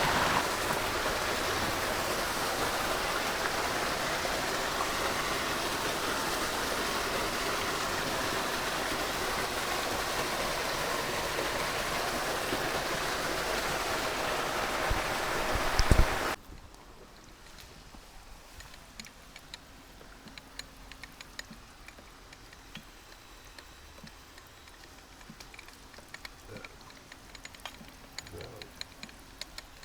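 Water rushing steadily, then cutting off suddenly about sixteen seconds in; after that only faint scattered ticks.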